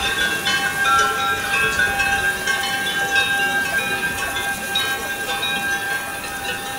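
Ambient music of layered, sustained tones, with short chiming notes coming and going over a soft hiss.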